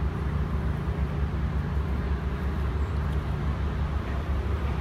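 Steady low outdoor rumble, strongest in the bass, with no distinct events standing out.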